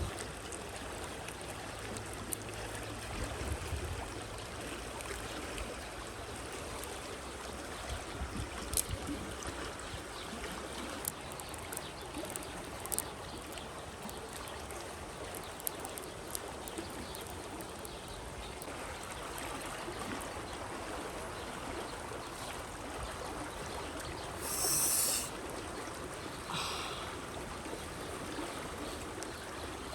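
River water rushing steadily, with scattered small clicks and snaps throughout. Late on there is a brief, sharp hiss lasting under a second, followed shortly by a fainter one.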